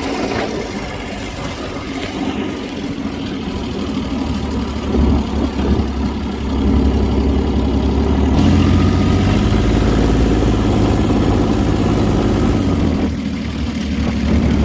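Dune buggy engine running, growing louder about eight seconds in.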